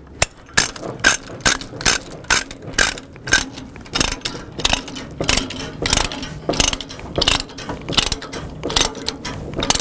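Ratchet load binder being cranked back and forth to tighten a tie-down chain: its pawl clicks in a steady rhythm, about two clicks a second, as the chain is drawn tight.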